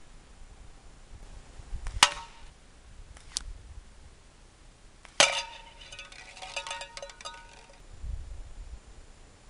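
Slingshot shots hitting metal cans: a sharp clang with a brief metallic ring about two seconds in, a faint click a second later, then a louder clang about five seconds in followed by around two seconds of rapid rattling.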